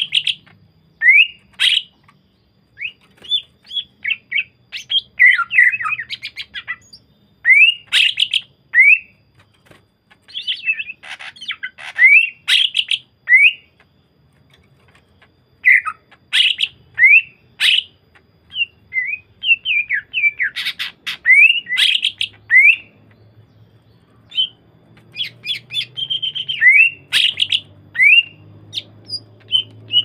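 Greater green leafbird (cucak ijo) singing a varied song of quick whistled notes and rising chirps in bursts, with short pauses between phrases.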